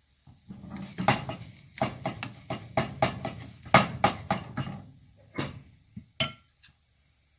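A utensil knocking and scraping against cookware: a run of about fifteen irregular clinks and knocks, thinning out to two separate knocks near the end.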